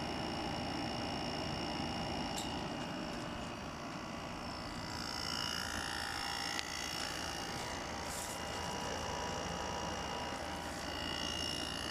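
A Frigidaire 8000 BTU window air conditioner running steadily, its repaired fan motor blowing with an even whoosh.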